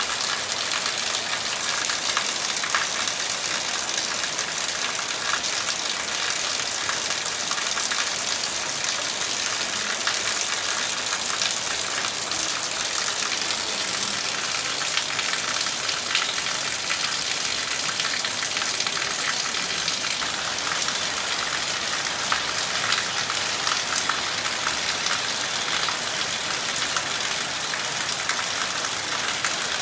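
Heavy rain falling steadily: an even hiss made of many close, fine drop impacts, with no thunder.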